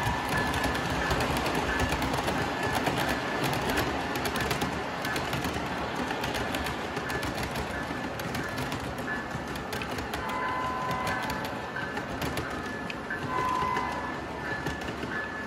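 Model diesel train running on three-rail tubular O-gauge track: a steady rolling rumble of metal wheels with rapid clicking over the rail joints. Near the end the locomotive's horn sounds in two short blasts.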